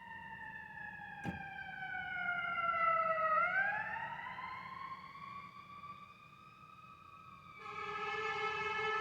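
A delivery app's alert tone that has gone wrong and sounds like a siren: an electronic wail that slides slowly down in pitch, then climbs back up. About three-quarters of the way in, a steady buzzy multi-note tone takes over. There is one click about a second in.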